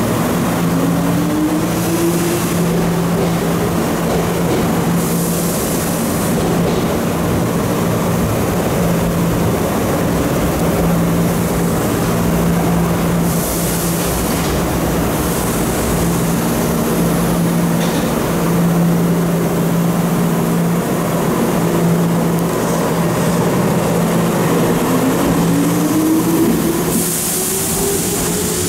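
Nose Electric Railway electric trains at a station platform: a steady hum throughout. The motor whine rises in pitch as a train pulls away in the first few seconds, and again near the end as a train starts to move.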